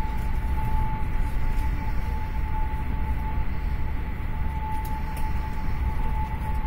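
PKP Intercity passenger train running at speed, heard from inside the carriage: a steady low rumble of wheels on track with a thin constant whine held over it.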